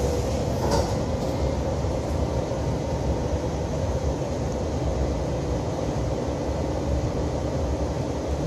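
Steady low hum and rumble inside a stationary Alstom Metropolis C751C metro car standing with its doors open, with a couple of faint clicks about a second in.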